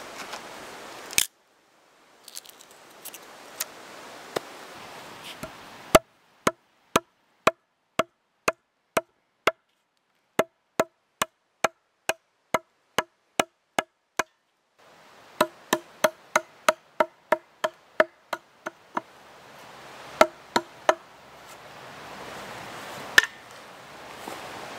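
Axe chopping into a log: a steady run of sharp wooden knocks with a short ring, about two a second, then a faster run of strikes and a few spaced blows near the end. It opens with about a second of a blade scraping through wood.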